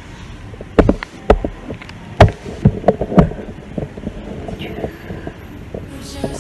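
A handful of sharp, irregular thumps and knocks, about six in two and a half seconds, the loudest about two seconds in, then softer scattered ticks and scuffs.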